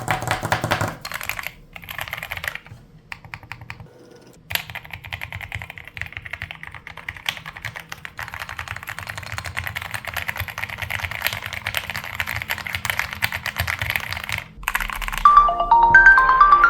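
Fast, continuous clacking of keys on a Keychron Q0 Max mechanical numpad, with two short pauses. Near the end the typing stops and an incoming-call ringtone melody of clear notes begins.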